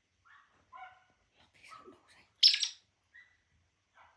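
African grey parrot imitating a dog: a string of short pitched calls, with one loud, harsh bark-like call about two and a half seconds in.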